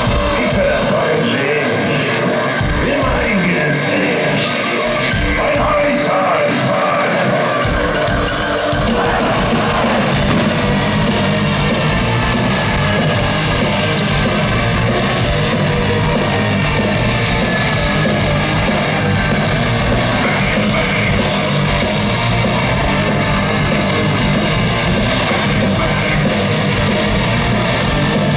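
A live heavy metal band playing loud through a concert PA, with distorted guitars and keyboards. The full band, with a heavy low end, comes in about eight seconds in.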